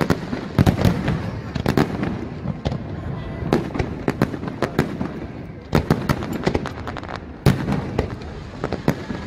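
Aerial fireworks shells bursting overhead: a rapid, irregular string of sharp bangs, some coming close together, over a continuous rumble.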